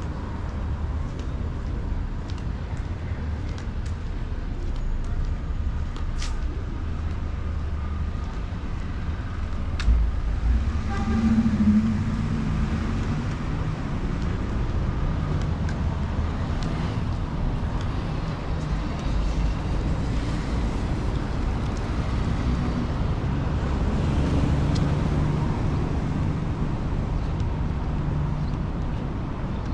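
Street traffic: cars and other vehicles driving past with a steady low rumble, one passing louder about ten seconds in.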